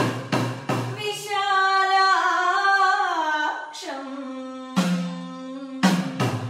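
A woman sings sopana sangeetham to her own idakka, the hourglass drum struck with a stick, whose strokes carry a short pitched ring. It opens with three quick drum strokes, then she sings a winding, gliding phrase and holds a long note, and near the end the drum strokes come in again, several in a row.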